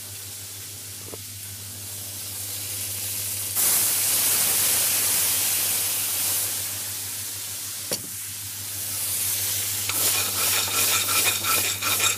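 Water poured into a hot pan of frying ginger-garlic and tomato paste: a sudden loud sizzling hiss about three and a half seconds in, slowly dying down. Near the end a metal ladle scrapes and clinks against the pan in quick strokes as the sauce is stirred.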